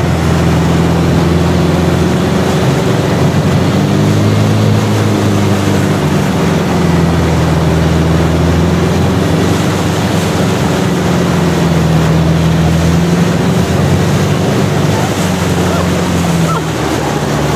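Long-tail boat engine running loud and steady under way, over the rush of water and wind. Its note shifts slightly, with a brief dip near the end.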